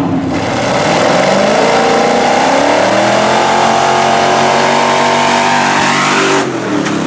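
Pickup truck engines at full throttle, accelerating hard with a pitch that climbs and then holds high. The sound changes abruptly just after the start and again near the end.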